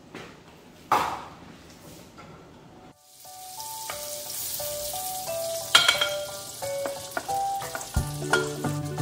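A single knock about a second in, then butter sizzling as it melts in a stainless steel pan, stirred with a wooden spoon, under light background music with a stepped melody.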